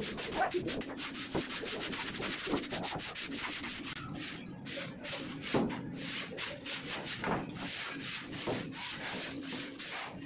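A hand broom brushing down the face of a freshly laid red brick wall in quick scratchy strokes, a few each second, cleaning the mortar joints.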